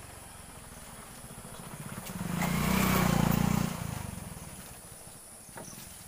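Engine of a passing motor vehicle, growing louder over a couple of seconds, loudest about three seconds in, then fading away.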